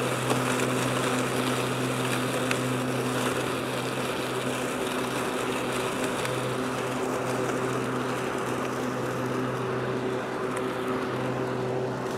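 Powersmart 26-inch 80-volt cordless self-propelled lawn mower running under load, its twin blades spinning with a steady electric hum as it mows and bags leaves. It grows slightly fainter as it is pushed away.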